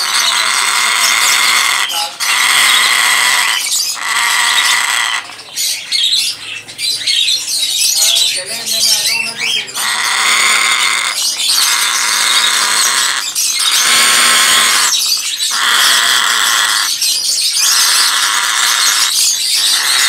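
African grey parrot making loud, long calls over and over, each lasting a second or two with short breaks between. In the middle the calls give way to a few seconds of varied, shifting chatter.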